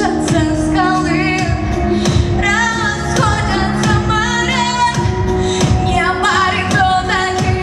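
A woman singing pop vocals into a microphone, with quick ornamented runs, over backing music with a steady beat.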